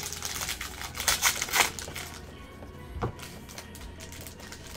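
Trading card packs crinkling and being torn open by gloved hands, then cards flipped through, in several short crackly bursts with a soft thump about three seconds in.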